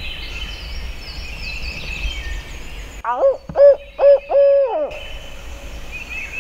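Barred owl-style hooting: a quick run of about four or five hoots about halfway through, the last one drawn out and dropping at its end, in the 'who-cooks-for-you' rhythm. Songbirds chirp faintly before and after.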